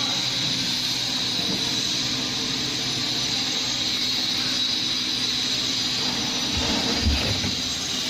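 Steady mechanical hum and hiss of running machinery, with a single low thump about seven seconds in.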